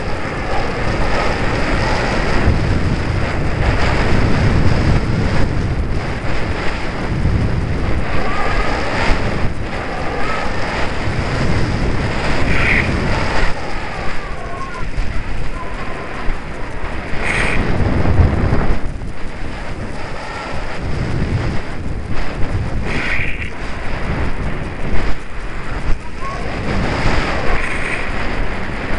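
Wind rushing and buffeting over the microphone of a small camera carried on a radio-controlled model plane in flight.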